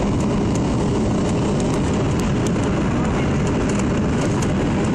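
Steady, deep rumble and rush of air inside the cabin of a Boeing 737-800/900 on final approach: its CFM56-7B jet engines and the airflow over the airframe.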